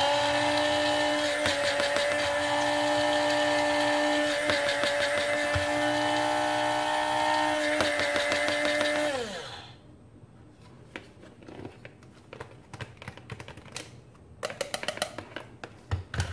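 Electric blade coffee grinder running steadily as it grinds dried moringa leaves to powder. The motor winds down with a falling pitch about nine seconds in, followed by light clicks and knocks as the grinder is handled and its lid taken off.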